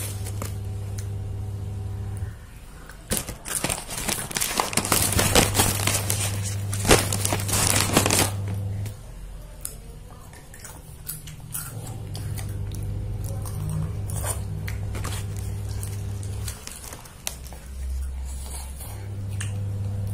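Plastic snack packet crinkling loudly for several seconds, with fainter rustles afterwards, over a low steady hum that cuts out and comes back a few times.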